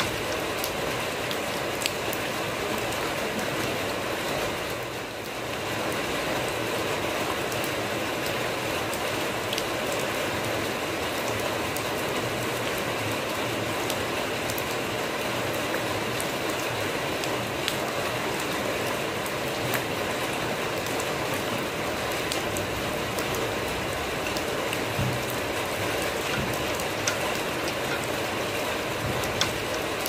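Steady rain falling on wet dirt ground and into puddles, with single drops clicking now and then. It briefly softens about five seconds in.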